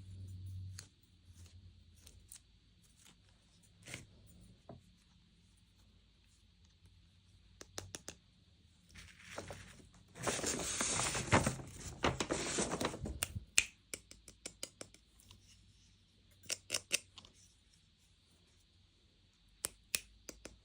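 Toy packaging being handled and opened by hand: scattered small clicks and taps, and a few seconds of tearing and crinkling about halfway through, the loudest part.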